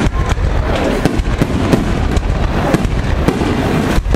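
Aerial fireworks shells bursting in a dense barrage: rapid, irregular sharp bangs over a steady low rumble.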